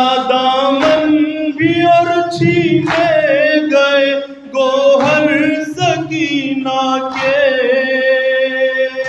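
A man singing a noha, a mournful Urdu lament, into a microphone. He holds long, wavering notes that bend in pitch. Sharp slaps of chest-beating (matam) come every second or two.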